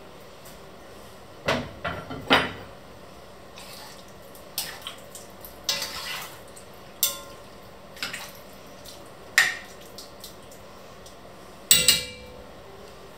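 A heavy lid and a metal spoon clanking and clinking against a red enamelled cast-iron casserole: the lid is set down early, then the spoon knocks and scrapes on the pot while stirring, some strikes ringing briefly, with a loud double clank near the end.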